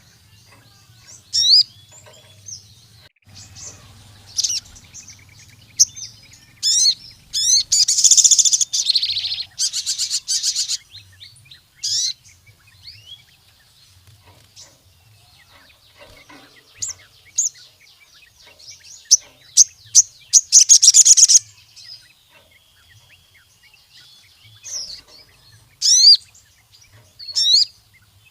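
Sogon sunbird singing vigorously: sharp high chirps and short falling notes, broken by rapid buzzing trills about eight seconds in and again around twenty seconds.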